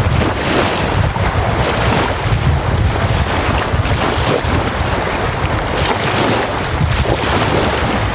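Small wind-driven waves lapping and breaking on a sandy lakeshore, washing in again and again. Wind buffets the microphone throughout with a low rumble.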